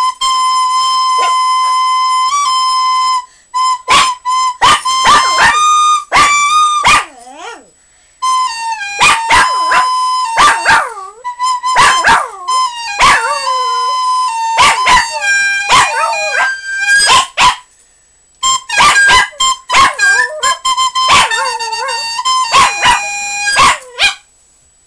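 A flute plays long held notes in four phrases with short breaks, and a small dog barks along with it, its sharp calls falling in pitch and cutting into the notes again and again.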